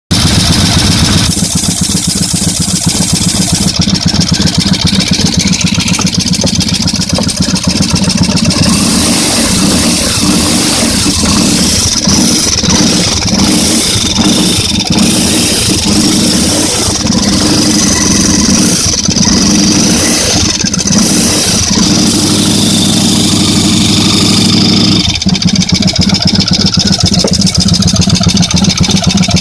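Yamaha V-Max 1200's V4 engine running, its note changing a few times, with an abnormal noise that the owner traced to an inner steel-plate cover not fitted properly.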